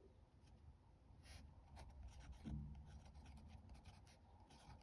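Faint scratching of writing on paper, in light irregular strokes.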